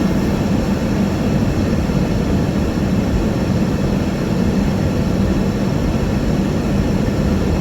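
Steady drone inside a moving car's cabin: engine and tyre noise with a low, even hum, unchanging throughout.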